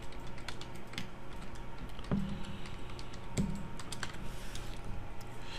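Typing on a computer keyboard: a steady run of irregular key clicks as a login email and password are entered.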